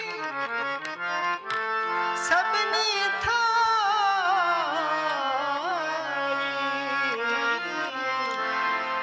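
Sikh devotional dharna: two Nagi harmoniums play a steady melody with tabla strokes. From about two seconds in, a man sings a long, wavering held phrase over them.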